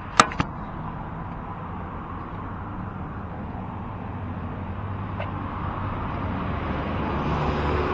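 Two sharp knocks right at the start, about a fifth of a second apart. Then steady street traffic noise follows, with a low engine hum that grows louder as a car drives up the road past the crossing.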